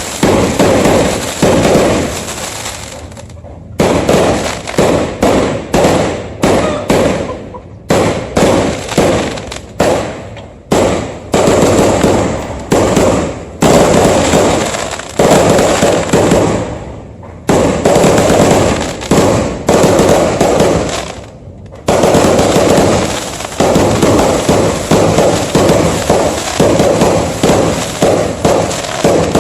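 Fireworks exploding loudly in rapid, dense volleys of bangs and crackles, with a few brief lulls between volleys.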